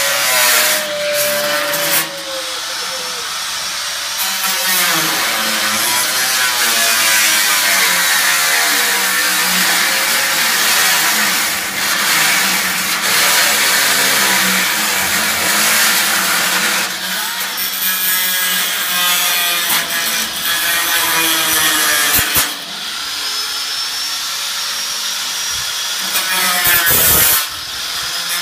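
A power tool cutting, running continuously with its pitch wavering as it bears into the work, with short drops in level about two seconds in and again past twenty seconds.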